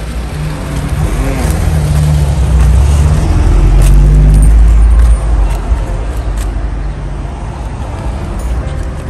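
A motor vehicle passes close by on the street: an engine rumble swells to its loudest about four to five seconds in, then drops back to steady traffic noise.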